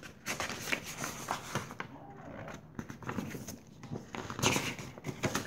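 Rustling and light handling noises of packaging and paper, with small irregular clicks and a slightly louder patch of rustling about four and a half seconds in.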